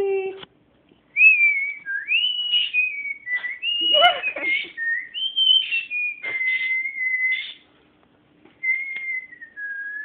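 A person whistling to a pet bird to coax it to sing: a string of sliding notes that rise and fall, a short break near the end, then a long slowly falling note.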